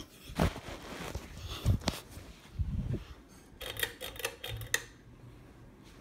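Harbor Breeze ceiling fan running, nearly covered by scattered knocks, clicks and rubbing from a phone being handled and swung around; a faint low hum comes through about halfway in.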